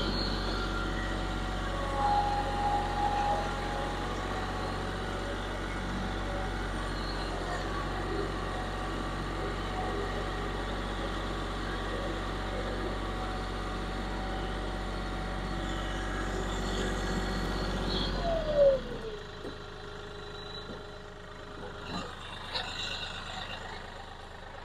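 Kioti CK4020 compact tractor's diesel engine running steadily as the tractor drives up with a railroad tie on its pallet forks. About three-quarters of the way through, the engine sound falls away and stops as it is shut off, leaving a quieter background with a few light knocks.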